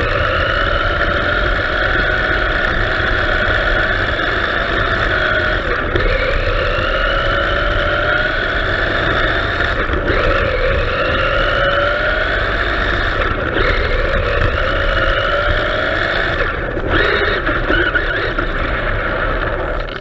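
1989 MRC Road Winner RC buggy's brushed 21-turn electric motor and drivetrain whining on a 2S LiPo, rising in pitch again and again as the car speeds up, with a brief drop about four times as the throttle is let off. Under it runs a steady rush of tyre noise on gravel.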